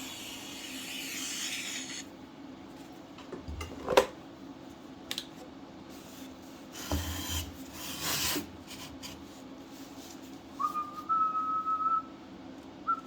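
TIG welding arc hissing, cutting off about two seconds in, over a steady low hum. Then a few clicks and short rubbing sounds of handling, and someone whistling a held note near the end.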